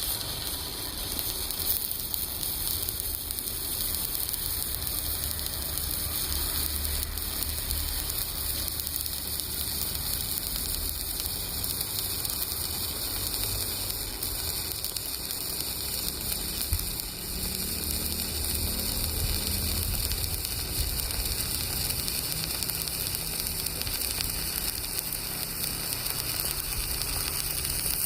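Electric arc welding on steel: the arc makes a steady, continuous crackling sizzle.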